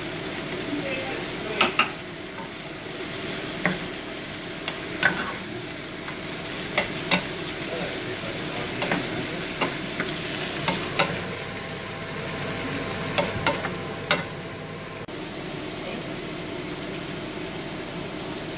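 Taro stems, bacon and coconut milk sizzling in a frying pan while a wooden spatula stirs them, knocking and scraping against the pan at irregular moments every second or two.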